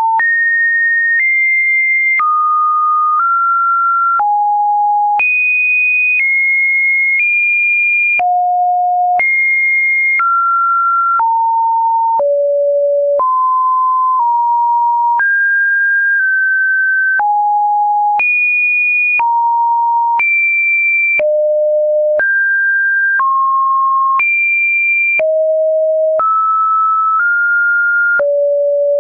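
Webdriver Torso-style computer-generated sine-wave test tone, a single pure beep that jumps to a new, random-seeming pitch about once a second, sometimes high, sometimes lower, with a slight click at each change.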